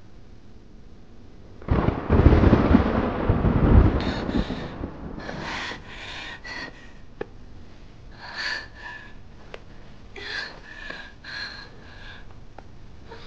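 A loud, rumbling, crash-like noise lasting about two and a half seconds, then a woman breathing heavily in short, breathy gasps and pants.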